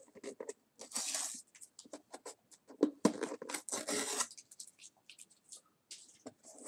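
A cardboard box being torn open by hand: two long rips, about a second in and around three seconds in, among scattered scrapes and clicks of the packaging.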